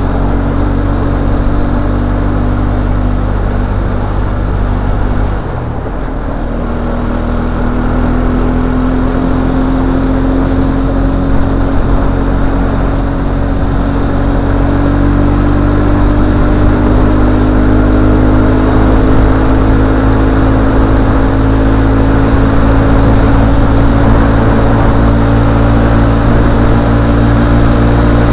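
A 1999 Arctic Cat 300 4x4 ATV's single-cylinder four-stroke engine running under way on a test ride. Its note drops briefly about five seconds in, then climbs slowly and steadily as the quad picks up speed.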